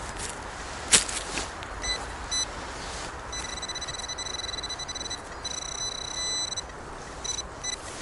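Metal detector sounding its target tone: two short beeps, then a long warbling tone lasting about three seconds, then a few more short beeps near the end. A sharp click comes about a second in, and steady background noise runs underneath.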